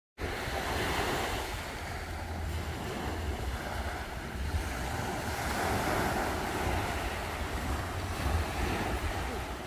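Storm noise: strong wind rumbling on the microphone over a steady rushing of heavy rain.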